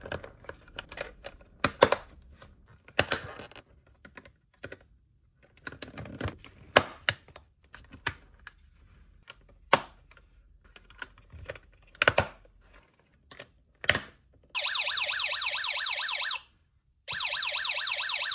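Snap Circuits parts being pressed onto the base grid: a run of sharp plastic-and-metal snap clicks. About fourteen seconds in, the motion-detector circuit's alarm IC sounds through its small speaker: two loud warbling siren-like blasts of about two seconds each with a short gap between, showing the circuit works.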